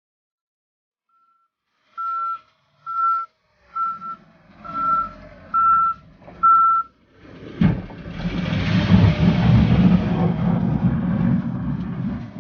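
Case backhoe's reversing alarm beeping six times, about one beep a second. Then comes a sharp knock, and the machine's engine runs loudly with a heavy rumble and hiss.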